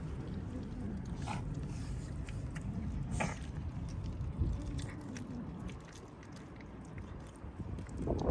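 A kitten chewing and biting its food, with a couple of sharp clicks about a second and three seconds in, over a low rumble.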